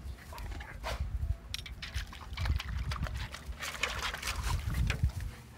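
A small blue heeler puppy lapping and splashing water from a metal bowl: irregular runs of quick wet laps, thickest in the second half.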